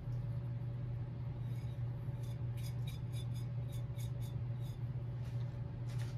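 Light, irregular clinks and scrapes of a spoon against kitchen containers as spice is added to the potato filling, over a steady low hum.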